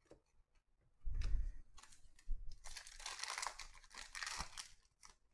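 Foil wrapper of a trading-card pack being torn open and crinkled by hand. There is a low bump about a second in, then about two seconds of dense crinkling and tearing.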